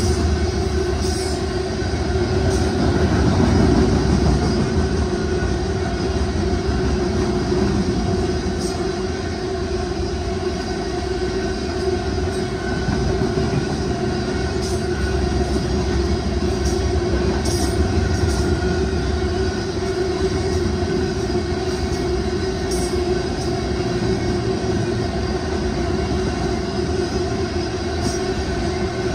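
Covered hopper cars of a grain train rolling past at close range: a steady rumble of steel wheels on the rails, with a faint held whine over it and scattered light clicks.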